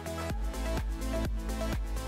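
Background electronic dance music with a steady beat; a heavy bass line comes in about a third of a second in.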